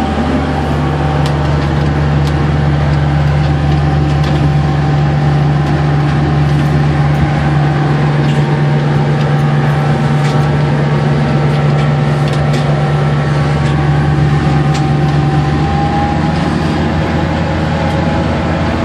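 A small boat's engine running steadily under way, heard from inside the wheelhouse as a loud, even, low drone with a deep hum that eases slightly near the end.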